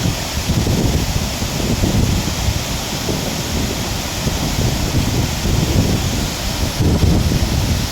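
Waterfall's steady rush of falling water, with wind buffeting the microphone in uneven low gusts.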